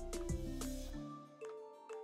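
Instrumental background beat with pitched notes and deep bass drum hits. The bass drops out about a second in, leaving lighter, sparser notes.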